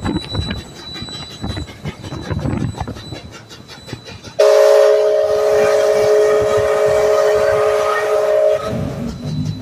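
Canadian Pacific 2816 steam locomotive sounding one long chime whistle blast, a chord of several steady tones held for about four seconds. It starts abruptly about four seconds in after a low rumble of the passing train and traffic, and cuts off sharply.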